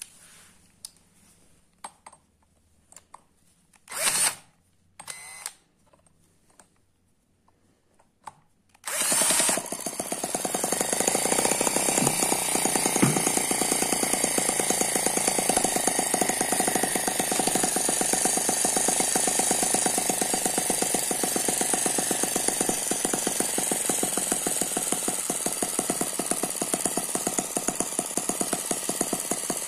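Eachine ET9 miniature four-stroke single-cylinder gasoline engine, dynamically balanced with twin spinning counterbalances: after two short bursts it starts about nine seconds in and runs steadily at a fast, even beat.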